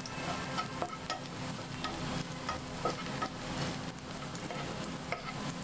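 Rohu fish pieces sizzling in hot olive oil and spice paste in a nonstick frying pan, with a wooden spatula scraping and tapping against the pan as the fish is stirred and turned.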